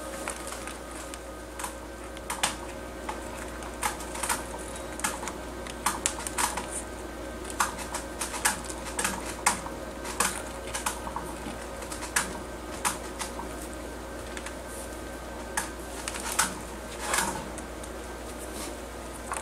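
Sugar gliders feeding on pomegranate flowers on a piece of cardboard: an irregular run of sharp clicks and crackles as they chew and tear the petals and scrabble over the cardboard.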